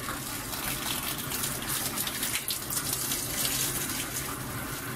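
Water running, a steady gushing rush with some splashing.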